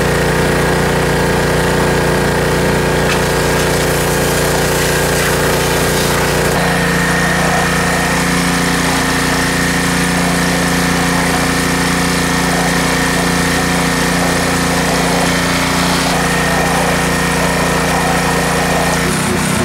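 Pressure washer running steadily while its wand blasts water into mud and standing water to dig out soil. The steady machine hum shifts in pitch about six and a half seconds in.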